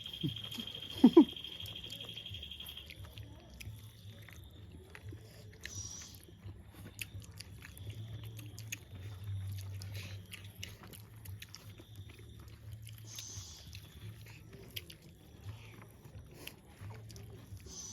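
Close-up chewing and biting of people eating, with many small clicky mouth sounds and a sharp loud knock about a second in. A faint steady high tone runs for the first few seconds.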